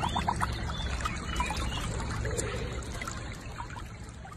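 Water trickling and sloshing around a husky lying in a shallow, muddy water channel. It starts with a quick run of gurgles and fades away near the end.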